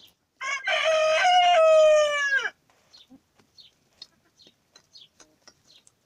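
A rooster crows once, a loud call of about two seconds that drops in pitch at the end, followed by faint quick taps of hens pecking garlic cloves from a metal pan.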